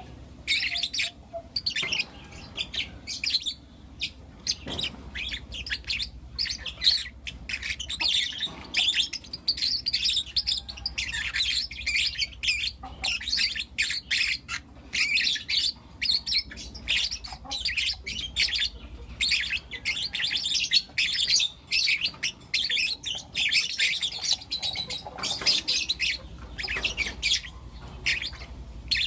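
A group of young lutino lovebirds chirping, with rapid, high-pitched, overlapping chirps that keep going without a break.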